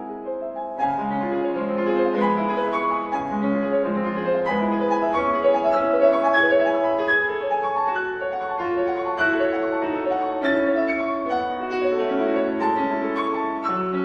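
Background music led by piano, a flowing melody of single notes over chords, picking up and growing fuller about a second in.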